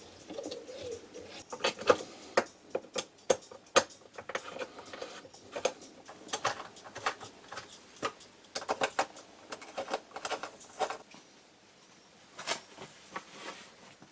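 Irregular clicks and knocks of plastic and metal parts as a cordless sliding mitre saw is handled and adjusted by hand, with the motor not running.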